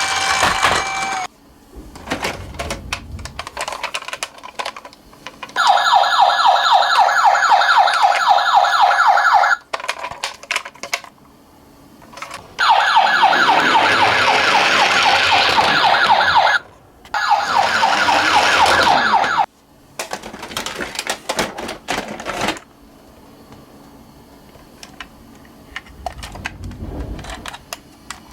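Electronic sirens of toy ambulance and police minicars sounding in three loud bursts of a fast warbling wail. The first two last about four seconds each and the last is shorter. Another siren glide cuts off about a second in, and clicks and clatter of the plastic toy cars fill the gaps.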